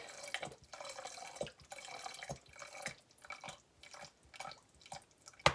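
Fragrance oil dripping and glugging from an upturned plastic squeeze bottle into a bucket of soap batter, in small irregular drips, with a sharp click near the end.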